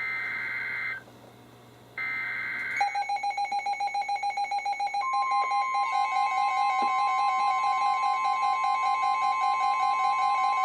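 NOAA Weather Radio SAME header data bursts: two warbling buzzes about a second long, a second apart. About three seconds in, a weather radio's rapid pulsing alert beep starts. About five seconds in, the steady 1050 Hz warning alarm tone joins and sounds on together with the beeping, marking the start of a flood warning broadcast.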